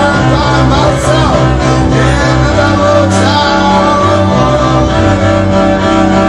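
Loud live music with a bowed string instrument, sustained low bass notes and some singing, with sharp accented hits about a second and three seconds in.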